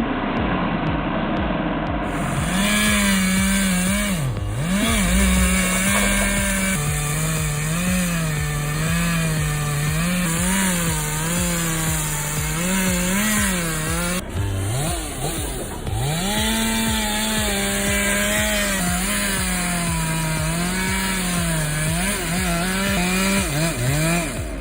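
Chainsaw running, its engine pitch repeatedly dipping and rising as it works, with short breaks where the clips change.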